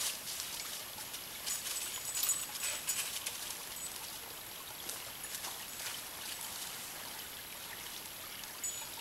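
Small woodland creek trickling steadily, with scattered short rustles and crackles in dry fallen leaves.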